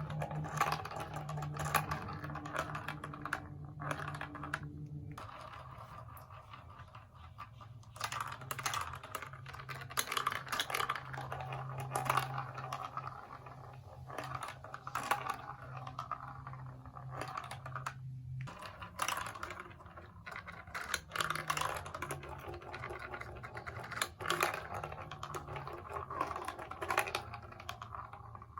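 Small plastic marble-run building pieces clicking and clattering in quick irregular runs of light taps, over a low steady hum.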